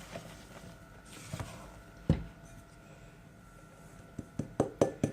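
Kitchen utensil knocking against a mixing bowl while flour is mixed into cake batter: one sharp knock about two seconds in, then a quick run of four near the end.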